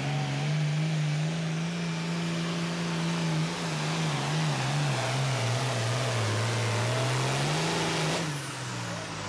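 International 1466 super farm pulling tractor's turbocharged diesel engine running flat out while it drags the pulling sled. The revs sag through the middle of the run as the load builds, pick up again, then drop sharply about eight seconds in as the throttle is cut, leaving a high whine falling away.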